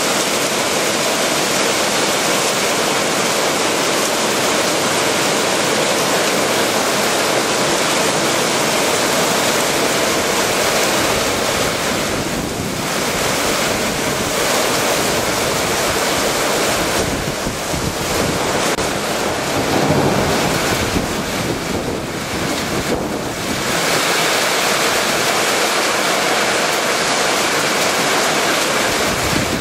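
Torrential rain pouring down on open ground, standing water and a car, a loud, steady hiss of water, with wind buffeting the microphone.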